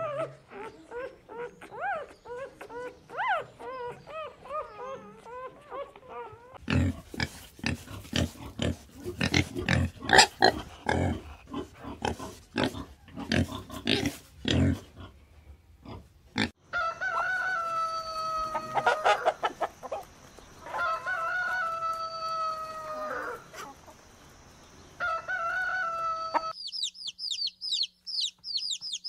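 A civet gives wavering, moaning calls. Then pigs grunt and squeal, many short rough calls in quick succession. A run of long, steady pitched calls from another animal follows, and near the end a flock of chickens' chicks peep in rapid high falling chirps.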